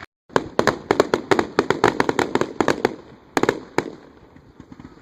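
Fireworks crackling overhead: a rapid string of sharp bangs and pops, several a second, with two louder bangs a little past halfway, then thinning out and growing fainter. The sound drops out briefly at the very start.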